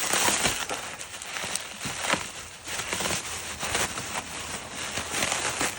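Packaging rustling and crinkling irregularly with small crackles as a boxed machine is unwrapped by hand.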